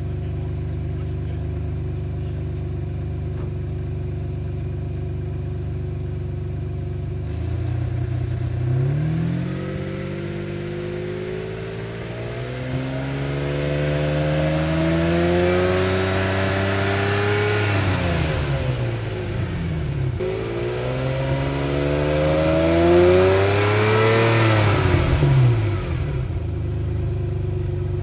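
Ferrari 456's V12 engine idling steadily, then revving up twice: each time the pitch climbs slowly for several seconds before dropping back to idle.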